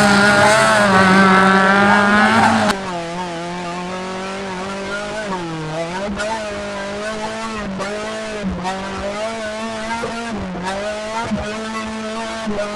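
Offroad 4x4 engine held at high revs, its pitch dipping briefly and recovering again and again. A few seconds in, the sound abruptly becomes quieter and duller.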